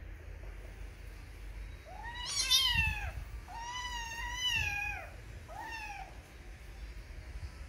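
A cat meowing three times, each call rising and then falling in pitch; the middle call is the longest and the first the loudest.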